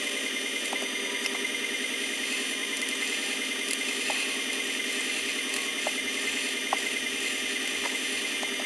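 Lathe running with a steady whir while a hand graver turns down a small mild steel blank, with a few faint ticks from the cut.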